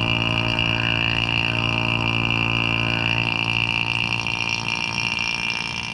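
Electric A/C vacuum pump running steadily with a low hum and a high whine, pulling a vacuum on a chamber of water through its hose. The note eases slightly over the last couple of seconds as the vacuum deepens toward boiling the water at room temperature.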